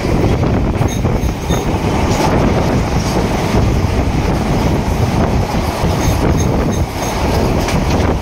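Train running at speed, heard from aboard: a loud, steady rumble of wheels on the rails.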